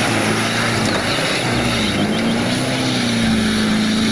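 Tanker truck's engine running as the truck drives through deep mud, with a steady low engine note that rises and falls briefly around the middle, under a dense rushing noise.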